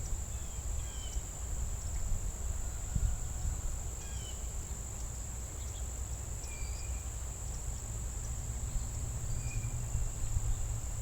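Steady high-pitched insect chorus, crickets or similar night insects trilling without a break, with a few short chirps now and then and a low rumble underneath.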